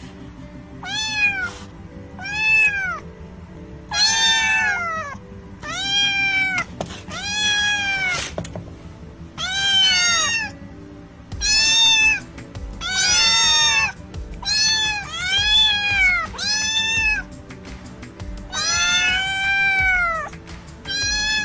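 Calico kitten meowing over and over, a long run of short, high-pitched meows that each rise and fall in pitch, over background music.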